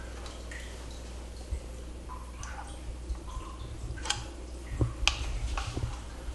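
Light handling and movement noises: scattered soft clicks and knocks, with two sharper clicks about four and five seconds in.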